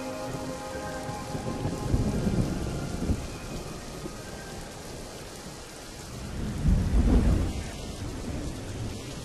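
Steady rain with low rolls of thunder, the loudest and longest rumble building and fading about seven seconds in.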